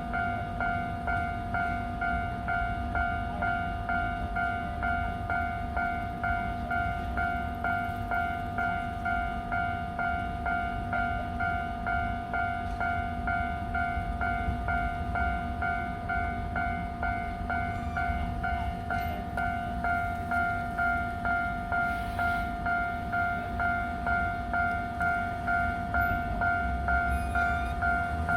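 Japanese level-crossing warning bell ringing without a break, an electronic two-tone clang about twice a second, over a low rumble.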